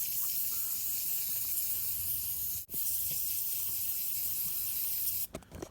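Aerosol spray can hissing steadily as more is sprayed on, with a brief break about two and a half seconds in and stopping shortly before the end.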